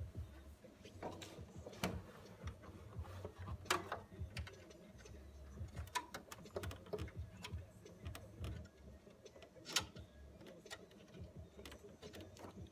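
Irregular small clicks and knocks from handling plastic zip ties threaded through a metal speaker grille as they are pulled to pop the dented mesh back out. A few sharper clicks stand out among them.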